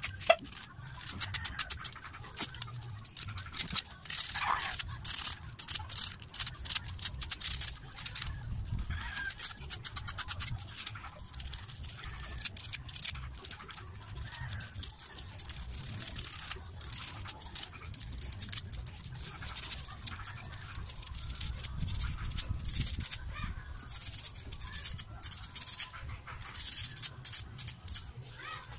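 Rapid scratching and clicking of a hand tool worked against a Makita planer's armature, scraping at its slots and windings, in irregular bursts.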